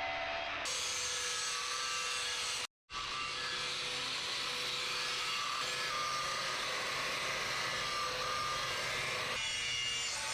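A power tool running steadily as it works the leaf-spring steel, with a brief drop to silence just under three seconds in.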